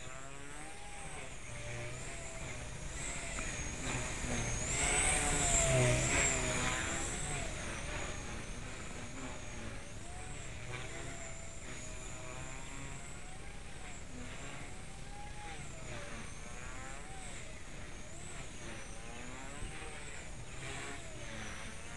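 Blade 130X RC helicopter in flight on an AEO Hummingbird 8000kV brushless main motor at 100% throttle: a steady high whine from the motor and rotors whose pitch wavers up and down with the manoeuvres. It swells louder for a few seconds about four to seven seconds in.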